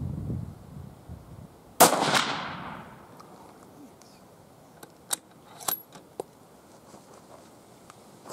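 A single shot from a Sako 85 varmint rifle in .22-250 about two seconds in, a sharp crack whose echo tails off over about a second. Low wind rumble fades out before the shot, and a few sharp clicks follow some three seconds later.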